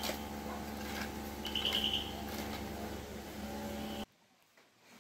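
A steady electrical or machine hum, with a short, rapidly pulsed high chirp a little under two seconds in. The hum cuts off abruptly about four seconds in.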